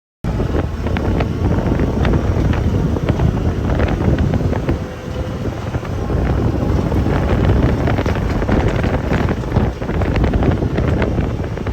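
Honda Pioneer 1000 side-by-side being driven, its engine running under heavy wind buffeting on the microphone, with scattered knocks and rattles.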